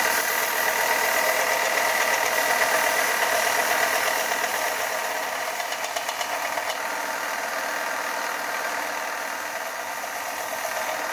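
Power grinder running steadily while grinding away the broken tip of a steel chef's knife blade to reshape it into a bunka profile, a continuous high whine with a rasping metal-on-abrasive hiss.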